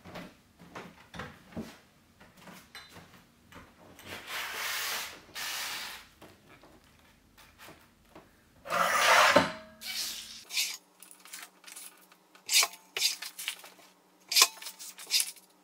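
A large photo print being handled on a rotary paper trimmer. The paper slides and rubs against the trimmer in long strokes, with scattered clicks and taps. The loudest rub comes about nine seconds in.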